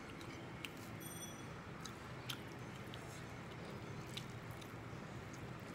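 Soft eating sounds: fingers mixing rice by hand on a ceramic plate and light chewing, with a few sharp clicks, the loudest a little past two seconds in, over a steady low hum.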